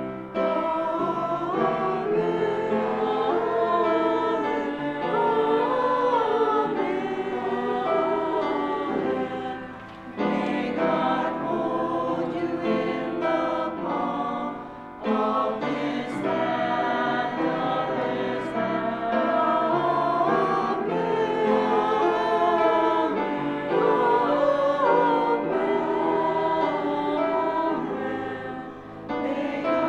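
A small church choir of mostly women's voices singing together, with brief pauses between phrases about ten, fifteen and twenty-nine seconds in.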